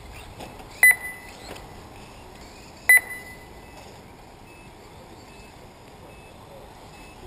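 Two short, sharp electronic beeps about two seconds apart, each ringing on briefly, from the race's lap-timing system as cars cross the timing line, over steady background noise.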